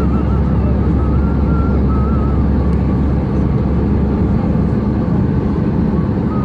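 Airbus A320 cabin noise: a steady, loud rumble of engines and airflow heard from inside the cabin, with a faint wavering whine that comes and goes.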